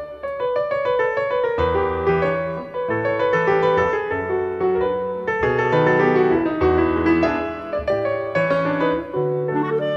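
Background instrumental music, a piano playing a melody over low held bass notes.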